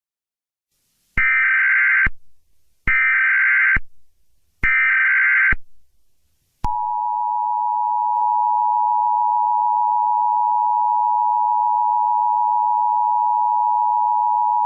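Emergency Alert System signal: three roughly one-second bursts of buzzy SAME header data tones, then, about seven seconds in, the EAS attention signal, a steady two-note electronic tone.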